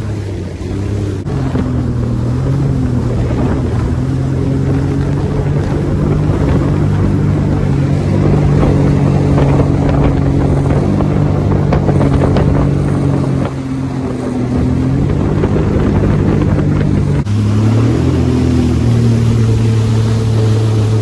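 Jet ski engine running at speed, a steady drone with rushing water and wind on the microphone; the engine note dips and shifts pitch briefly a few times as the throttle changes.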